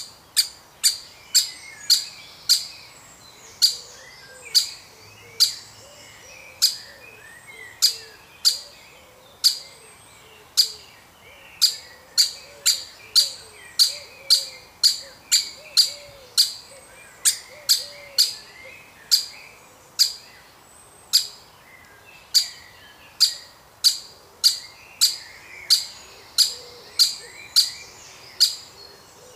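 Woodpeckers calling: sharp, very short calls repeated irregularly about once or twice a second, over a softer continuous chattering, as a young woodpecker is being fed.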